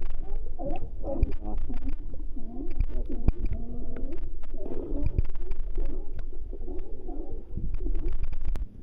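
A colony of California sea lions calling: many overlapping calls that rise and fall in pitch, heard with the camera at the water's surface and water washing over it.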